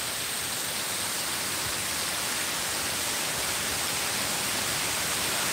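Small artificial waterfall: water splashing down a stepped stone cascade into a pond, a steady rushing hiss that grows slowly louder.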